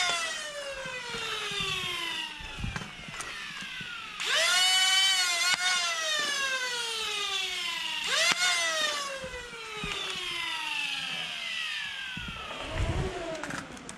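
Electric flywheel motors of a foam dart blaster spinning up with a whine and coasting down. This happens three times, each rev rising sharply and then falling slowly in pitch over about four seconds.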